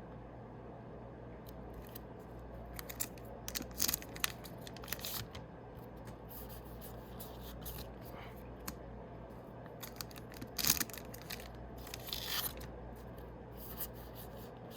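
Foil Yu-Gi-Oh booster packs being torn open and handled: scattered short crackles and rustles of wrapper foil, the sharpest a little after ten seconds and a longer tear around twelve seconds.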